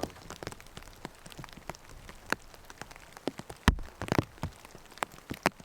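Raindrops falling, many irregular separate taps, with one louder knock about three and a half seconds in.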